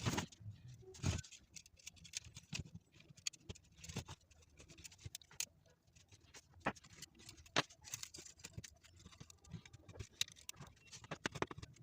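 Irregular light clicks and taps of small electronic parts and tools being handled and set down.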